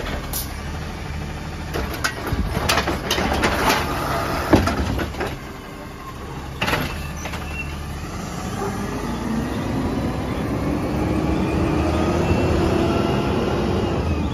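Automated side-loader arm of a Peterbilt 320 garbage truck handling a trash cart: several knocks and bangs as the cart is dumped and set back down. Then the truck's compressed-natural-gas engine runs up as it pulls away, its pitch rising slowly toward the end.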